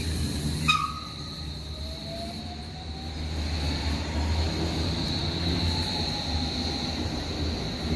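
Hamburg U-Bahn train running on curved track, its wheels squealing in a steady high-pitched tone over a low rumble. A sharp click sounds about a second in.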